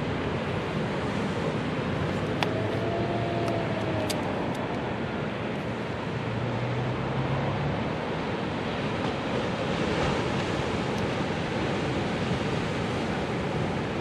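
Small waves washing up on a sandy beach: a steady wash of surf with foam running up the sand. A few faint clicks come about two to four seconds in.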